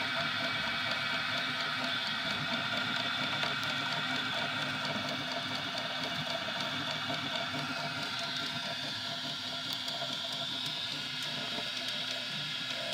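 3D printer running a print: its stepper motors give a steady whine of several tones that shift in pitch as the head moves, over a constant hiss.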